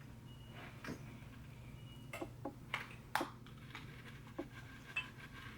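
Faint scattered clicks and light taps, about six of them, from small objects being handled, over a low steady hum.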